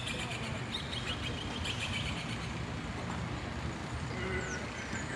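Outdoor city ambience: a steady low rumble of traffic with birds calling over it. A rapid chattering call runs through the first two and a half seconds, and a few short high chirps come near the end.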